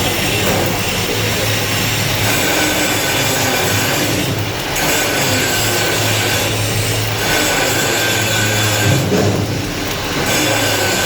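Stick welding with an E6013 electrode on a filler pass: the arc crackles and sizzles steadily over a low hum, easing off briefly a few times.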